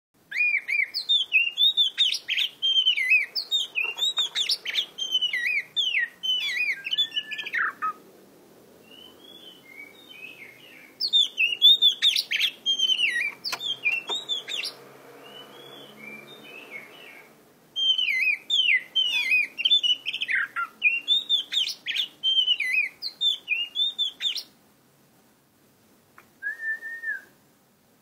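Oriental magpie-robin (kacer) singing in three long bouts of rapid, varied whistled phrases, with short pauses of scattered quieter notes between them, then one short call near the end.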